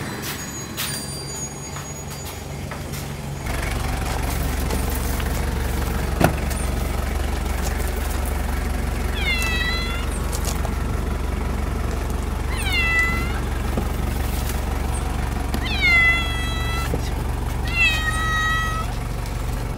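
A cat meowing from inside a plastic pet carrier: four drawn-out meows spaced a few seconds apart in the second half, over a steady low rumble.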